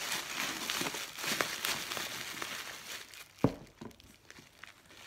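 Crumpled packing paper rustling and crinkling as hands dig through a cardboard box, with one sharp knock about three and a half seconds in; the rustling then dies down to a few light taps.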